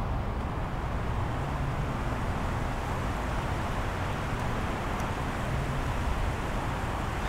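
Steady outdoor background noise: a constant low rumble with a hiss over it.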